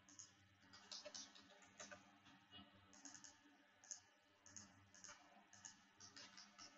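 Faint, irregular clicks of a computer mouse and keyboard keys as a name is typed into a dialog box.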